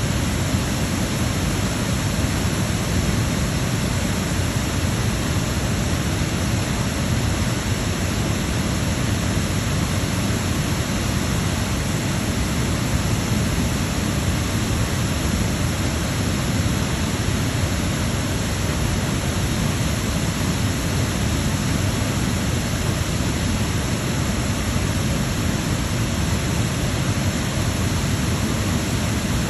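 Waterfall and whitewater rushing: a loud, steady, unbroken rush of water, deepest in the low end.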